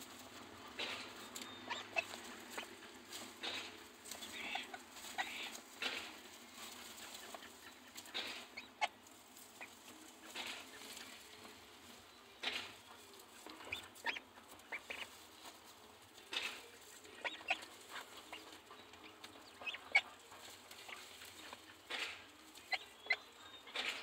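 Brooding hen duck shifting on her eggs and working the nest straw with her bill: irregular rustling and crackling of dry straw, with a few soft calls.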